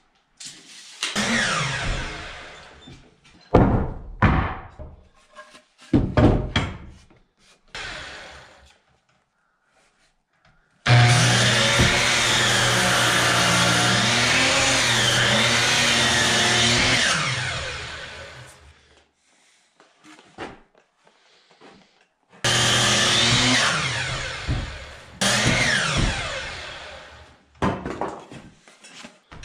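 DeWalt sliding compound miter saw started again and again to crosscut boards, its motor whining up, cutting through the wood and winding down after each cut. The longest run holds steady for about six seconds in the middle before fading.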